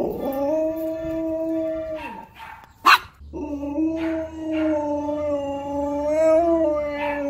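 Siberian husky howling: two long howls held at a steady pitch, the first about two seconds long and ending in a downward slide, the second about four seconds long. Between them, about three seconds in, comes a single sharp click, the loudest sound.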